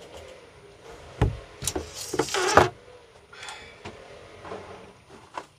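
Engine oil dipstick being pulled from its tube: a few light clicks and scrapes, with a louder scraping rustle about two seconds in.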